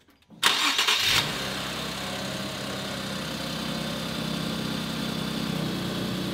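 Cold start of an Infiniti Q50's VR30 3.0-litre twin-turbo V6 running through newly fitted lower downpipes: a brief crank and a loud flare about half a second in, settling within a second into a steady fast idle.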